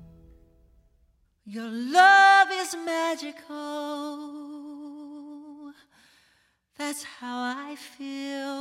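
A piano accompaniment dies away, then a man sings unaccompanied: a long held phrase with a slow vibrato, a brief pause, and a second phrase.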